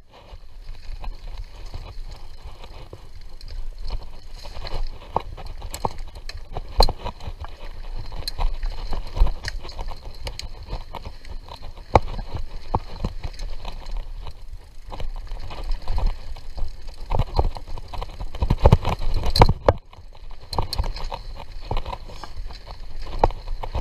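Mountain bike rolling over a rough dirt trail: tyre and ground noise under a steady low rumble, with frequent irregular knocks and rattles from the bike. There is a louder cluster of knocks just before a brief drop in sound about twenty seconds in.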